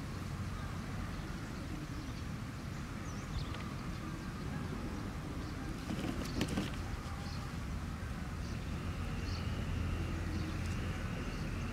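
Outdoor field ambience: a steady low hum, perhaps a distant motor, under faint bird chirps. About six seconds in there is a brief rustle with a few clicks.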